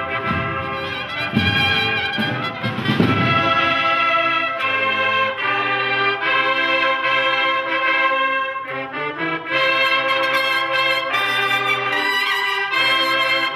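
Cornet and drum band playing a slow processional march: drums heavy for the first few seconds, then held brass chords over a steady bass line.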